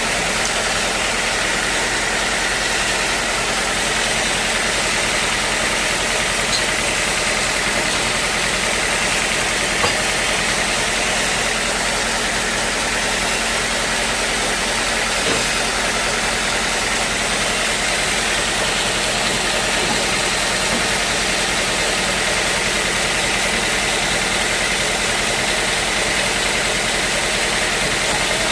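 Sawmill machinery running steadily, an engine or motor droning at an even level, with one brief click about ten seconds in.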